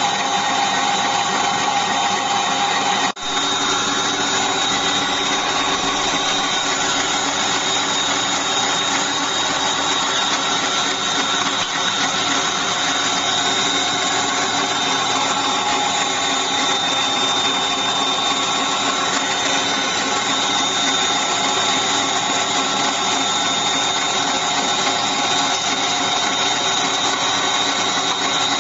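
Electric mixer motor running steadily as it beats cookie dough in a bowl, with a brief break about three seconds in.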